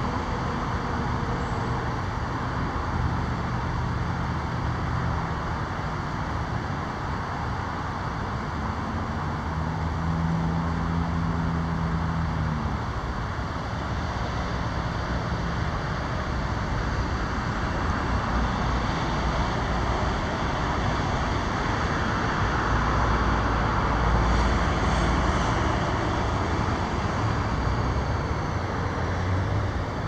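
Steady road-traffic noise from passing cars, with a low engine hum about a third of the way in and a louder vehicle passing near the end.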